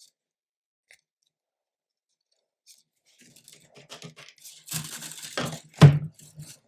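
Handling noise from plastic 3D-printer filament, PTFE tube and extruder: scraping and rustling that starts about three seconds in and grows louder, with one sharp knock near the end as the extruder is set down.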